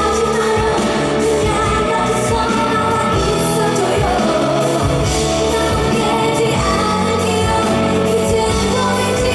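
A woman singing a pop ballad with band accompaniment, her sustained melody over steady bass and backing instruments.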